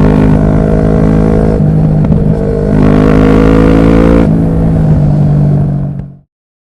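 2009 Kawasaki ER-6n's parallel-twin engine running under way, its note shifting a couple of times with the throttle, then fading out to silence near the end.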